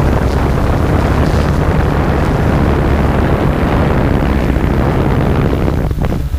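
Flying drone heard from its own onboard microphone: loud wind rushing over the mic with a steady low drone of the motors and propellers under it. The rushing eases off about six seconds in.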